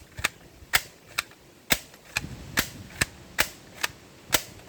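A toy gun firing repeatedly: a string of sharp snapping shots, about two a second.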